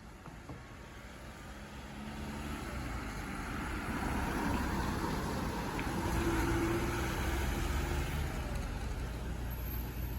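A road vehicle driving by with no siren: engine and tyre noise growing louder over the first half and staying loud through the rest.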